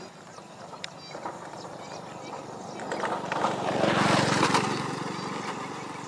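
A motor vehicle's engine passing by: it swells about three seconds in, is loudest around four seconds, then fades away.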